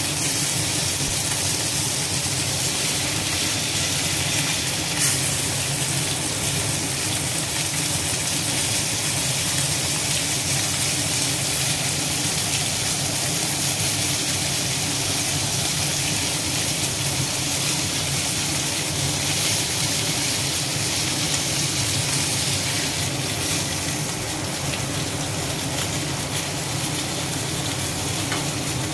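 Pabda fish sizzling steadily in hot oil in a frying pan, with one short knock about five seconds in.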